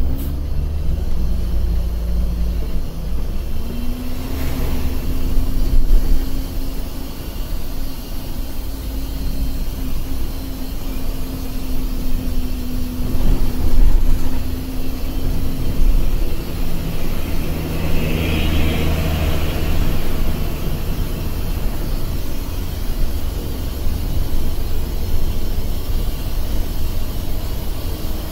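Intercity bus's diesel engine droning with road noise, heard inside the cabin while driving. The engine note rises about four seconds in and holds, then drops lower a little past halfway.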